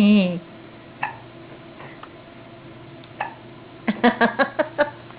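A girl's hiccups, short sharp gulps about a second and about three seconds in, then a quick run of about seven laughs near the end.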